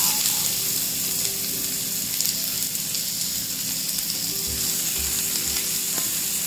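Chopped onions frying in hot oil with cumin seeds: a steady sizzling hiss.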